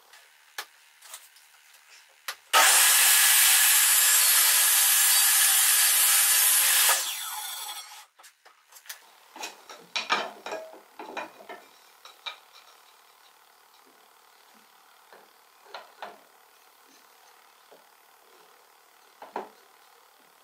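A table saw's blade cutting through a pine board, a loud steady noise that starts suddenly about two and a half seconds in and stops about four and a half seconds later. Scattered light knocks of wood pieces being handled on the saw table follow.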